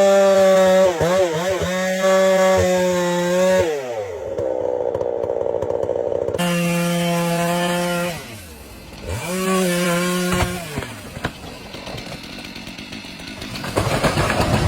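Chainsaw engine running at high revs while cutting wood, its pitch dropping and rising again several times as the throttle and the load change, quieter over the last few seconds.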